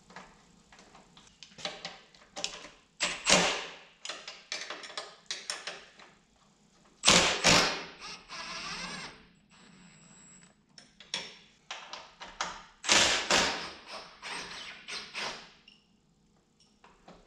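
Cordless impact driver running in several short bursts as it works screws loose from a radiator shroud. Tools and metal parts knock and clatter between the bursts.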